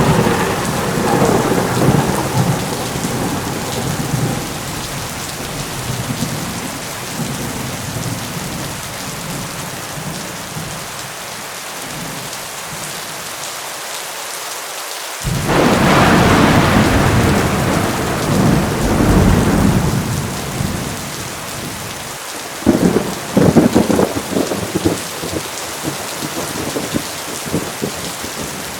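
Heavy rain pouring steadily with three peals of thunder. One rolling peal fades away at the start. A long loud rumble comes about halfway through. A few seconds later comes sharp, crackling thunder that rumbles off.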